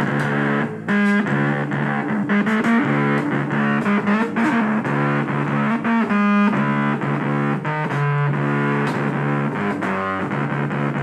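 Music: distorted electric guitar playing sustained chords and notes with effects, with strummed strokes.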